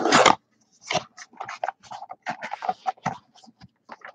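Thin white cardboard box being opened by hand: the lid flaps are pulled apart with a loud scrape at the start, then paper packaging inside crinkles and rustles in short, irregular scrapes as it is handled.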